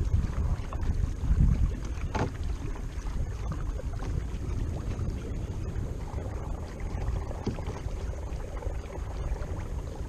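Wind buffeting the microphone as a rumble that comes and goes, with water lapping against a plastic kayak hull as it glides along.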